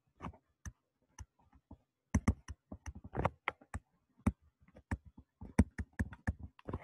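Pen stylus tapping and clicking on a drawing tablet during handwriting: an irregular run of sharp clicks, sparse at first and coming thick and fast from about two seconds in.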